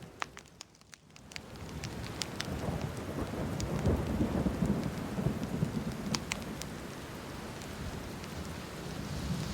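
Steady rain with a low rumble of thunder swelling a few seconds in and fading, over scattered sharp crackles of a wood fire.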